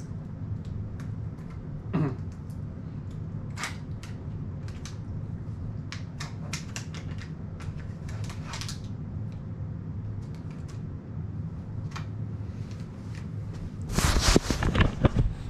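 Steady low room hum with scattered light clicks and taps from small handheld objects being handled. Near the end comes a burst of loud rubbing and knocking as the camera is grabbed and picked up.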